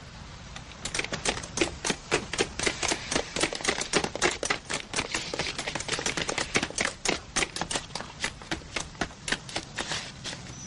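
A rapid, uneven series of sharp clicks or taps, about four to five a second, starting about a second in and stopping near the end.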